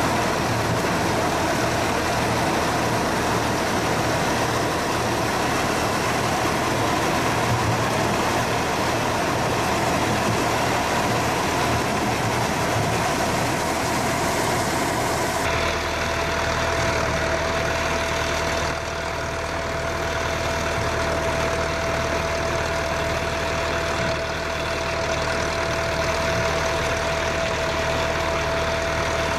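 Farm tractor engine running steadily while it drives a towed pumpkin seed extraction machine, with a steady whine over the engine noise. The sound changes abruptly about halfway through.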